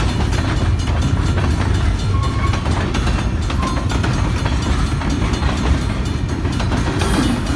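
Freight cars of a passing train rolling by: a steady heavy rumble of steel wheels on rail, with irregular clicking over the rail joints and a few brief high squeals.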